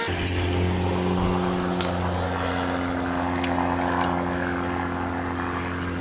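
A motor running at a constant speed: a steady droning hum that starts suddenly and holds one pitch, with a few light clicks over it.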